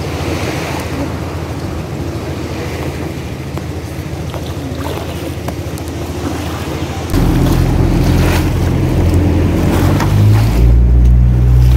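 Outrigger boat's engine running low and steady, with water sounds, while the boat is poled through the shallows. About seven seconds in the sound turns suddenly louder: the engine running hard with wind and water rushing as the boat cruises on open sea.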